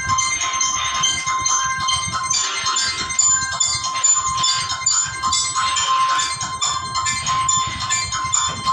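Music with bright, ringing bell-like chimes over a steady high tone.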